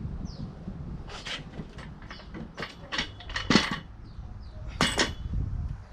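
Metal tools clicking and clanking irregularly, about eight sharp knocks and scrapes with the loudest near the middle and near the end, with faint bird chirps behind.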